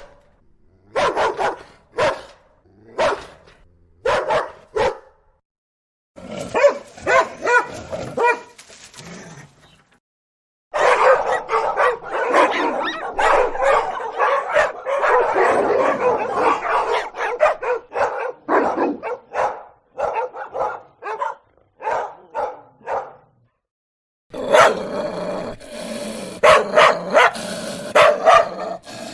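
Dogs barking in a run of separate clips broken by short silences: first single barks about once a second, then a long stretch of dense, overlapping barking, then more rapid barks near the end.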